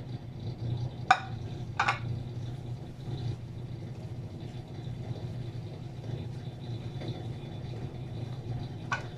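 Spices tipped off a plate into a dish of crushed boiled potatoes, the plate's edge knocking sharply on the dish twice, then gloved hands squishing and mixing the potato filling. A steady low hum runs underneath.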